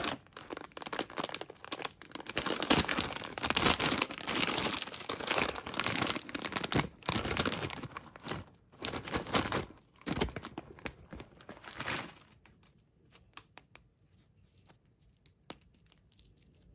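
Plastic film snack pouch being torn open and crinkled by hand, a dense crackly rustle for about twelve seconds. After that it turns much quieter, with only a few faint ticks.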